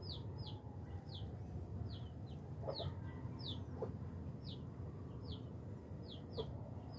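Bird calls: short high chirps, each falling in pitch, repeating about twice a second, with a few lower, shorter notes in between, over a steady low hum.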